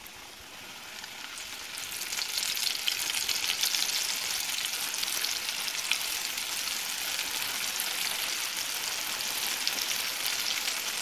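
Floured, marinated fish pieces frying in hot oil in a pan: the sizzle swells over the first couple of seconds as the pieces go in, then holds as a steady crackling sizzle.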